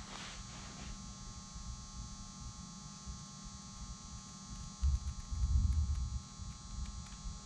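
Steady electrical hum in the background, with faint snips of scissors cutting through aircraft fabric. About five seconds in comes a low rumble of handling noise lasting just over a second.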